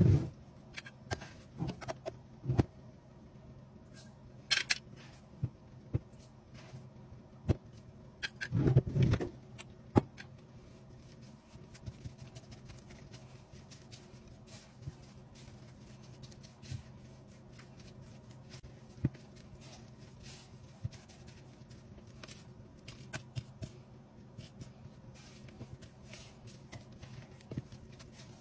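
A utensil scraping and tapping against a mixing bowl as soft cream cheese is mashed and stirred by hand. There are scattered clicks throughout and a louder cluster of knocks about nine seconds in, over a faint steady hum.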